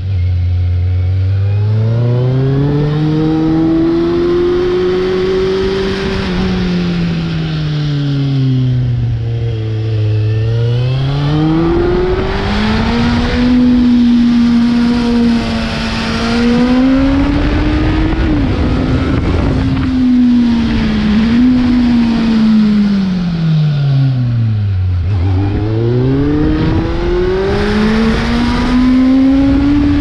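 Kawasaki Z750's inline-four engine running through a carbon exhaust with the dB killer removed, heard from on the bike while riding. The engine note climbs and falls again and again as the throttle opens and closes through the bends. It drops low twice, about a third of the way in and again late on, and climbs back hard each time.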